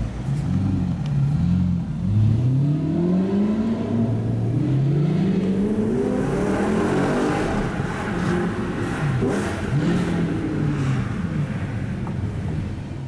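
A performance car's engine revving again and again, each rev climbing in pitch and then dropping back, with a few quick blips near the end. It is heard from inside a car following close behind.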